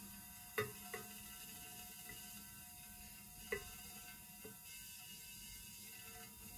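Faint steady electrical hum from a plasma lamp, with a few light glass clicks as a glass neon spiral tube is set against the lamp's glass dome. The two sharpest clicks come about half a second in and about three and a half seconds in.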